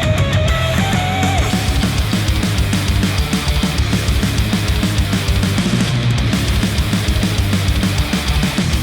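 Heavy rock music with a steady, driving drum beat, played back through headphones and picked up by microphones placed at them.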